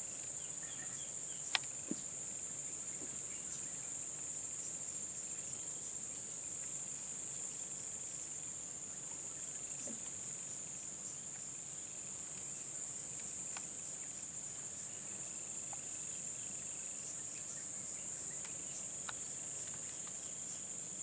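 Steady high-pitched chorus of insects in grass and rice fields, shrill and continuous, with a short pulsing stretch early on. A single sharp click about a second and a half in.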